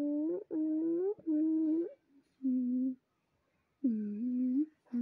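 A person humming a tune with closed lips: a series of held notes, each about half a second to a second long, with short breaks between them and a longer pause partway through.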